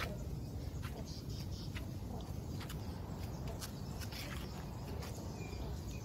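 Outdoor background sound: a steady low rumble with faint, scattered high bird chirps and light clicks.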